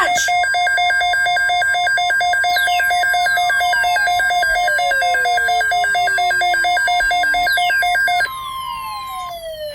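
Electronic Emergency Alert System alarm for a tornado watch: a rapid pulsing beep on two pitches over a steady tone, with falling whistle-like sweeps layered in from about two and a half seconds. The pulsing cuts off about eight seconds in, leaving the steady tone and the falling sweeps.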